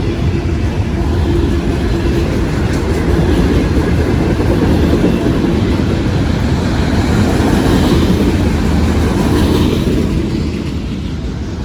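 Long freight train of empty auto-rack cars rolling past, a steady rumble of steel wheels on rail that swells slightly midway and eases near the end.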